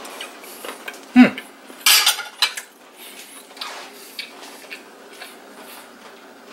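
Metal fork and knife scraping and clattering on a plate: a sliding scrape that drops in pitch about a second in, a few sharp clinks around two seconds in, then lighter taps.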